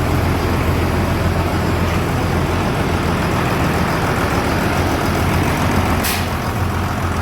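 Overhauled Deutz diesel engine of a Terrion tractor running steadily with its front PTO engaged. A brief click comes about six seconds in.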